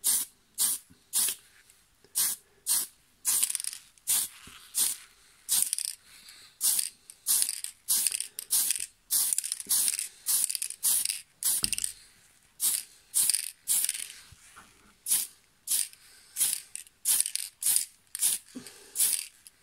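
Blue paint sprayed onto a small die-cast model car body in short hissing bursts, about two a second, with a few longer passes: the colour coat of a two-tone paint job.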